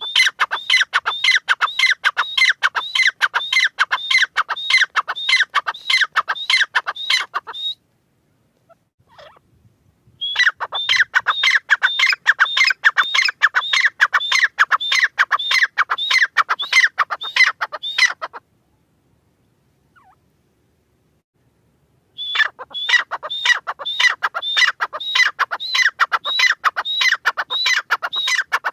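Grey francolin calling: three long bouts of rapid, evenly repeated high notes, about three or four a second, with short pauses between the bouts.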